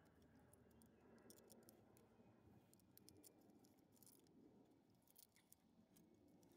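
Near silence: faint room tone with a few faint scattered clicks.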